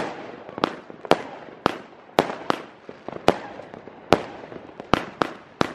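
Consumer firework battery firing: a rapid series of sharp bangs, about two a second, each followed by a short echo.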